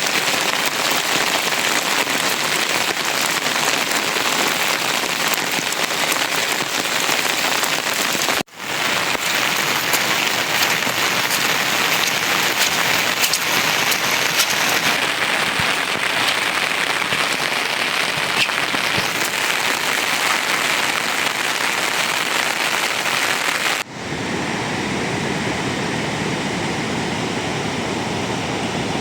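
Steady rain falling, a dense hiss of drops with no pause. It breaks off sharply twice, and for the last few seconds it is duller, with less of its high hiss.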